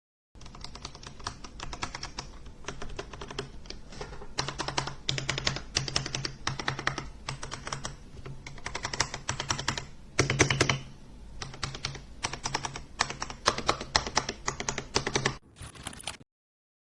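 Fast typing on a Royal Kludge RK61 60% mechanical keyboard: a quick run of key clicks broken by short pauses, with a louder cluster about ten seconds in. The typing stops abruptly near the end.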